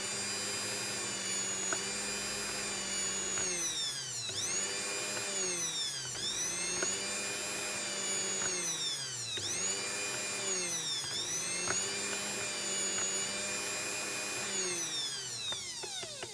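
Bosch blender's brushed electric motor running on speed 2 after its speed selector switch repair, a steady whine whose pitch dips briefly and recovers about five times, then spins down and stops near the end.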